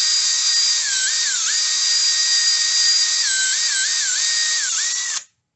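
Cordless drill spinning a silicon carbide ball hone inside a cast iron cylinder sleeve, honing the bore to a crosshatch for new piston rings. The motor gives a high whine over a hissing scrub, and the whine dips in pitch several times. It stops suddenly near the end.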